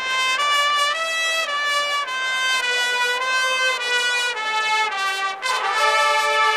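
College marching band's brass section playing a melody of long held notes that step up and down in pitch, trumpets out front. The sound dips briefly a little over five seconds in before a new chord comes in.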